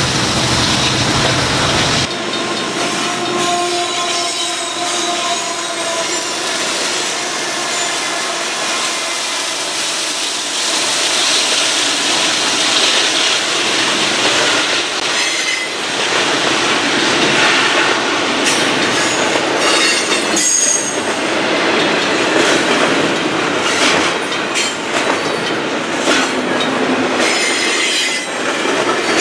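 Well cars loaded with double-stack containers rolling past close by: a steady wheel-on-rail rumble with squealing wheels and a few sharp clacks.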